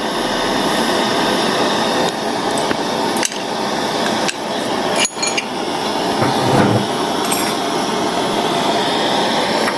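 Small metal clicks and taps from hand tools working the hinge screw of a metal eyeglass frame, a few sharp ticks spread over several seconds, over a steady loud hiss.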